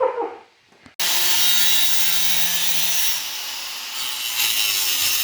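Cutoff wheel cutting into a car hood panel. It starts suddenly about a second in and runs steadily, a harsh grinding with a low hum beneath it.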